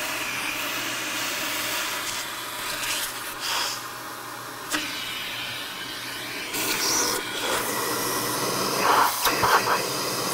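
A second vacuum cleaner running steadily, its hose nozzle held to the opened Oreck XL2 housing to suck out the clogged air path. The rushing airflow changes now and then as the nozzle is moved around.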